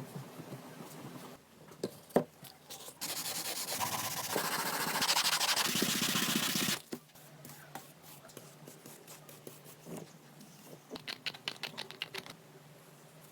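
Wood being sanded, a steady sanding noise lasting about four seconds from about three seconds in. Scattered knocks and clicks of handling come before and after it.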